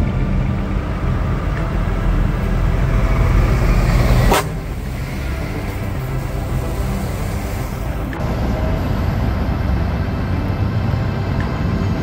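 Semi-truck's diesel engine running as the truck drives past close by. The sound changes abruptly about four seconds in, and again near eight seconds.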